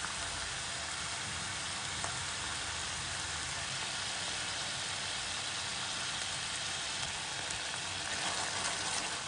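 Schezwan sauce base frying in hot oil in a kadhai, sizzling steadily.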